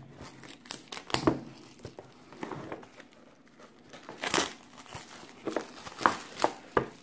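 Thin plastic shrink-wrap being torn and peeled off a cardboard card box, crinkling and crackling unevenly, with the loudest crackles about a second in, near four seconds and near six seconds.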